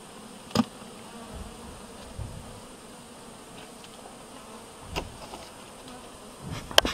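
Honeybees buzzing around an opened hive, with knocks of the wooden hive super being handled as it is lifted off and set aside: a sharp knock about half a second in, another about five seconds in, and a louder clatter near the end.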